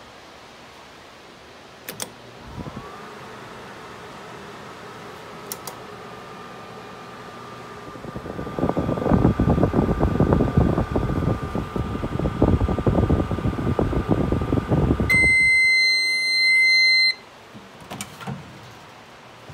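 Amana Radarange RR-10 microwave oven running a short test: a click as it starts, then a steady hum with a steady tone, joined midway by loud irregular crackling. The running stops suddenly and the oven gives one long beep, about two seconds, at the end of the cycle.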